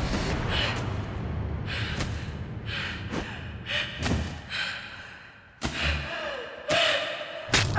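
A woman's sharp, heavy gasps and breaths of exertion, about six in a row; the last is longer and voiced, like a strained cry. A few thuds fall among them.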